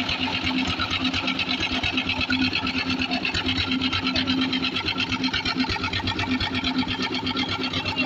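Concrete mixer machine with its bucket hoist running, a steady, rapid, even mechanical clatter.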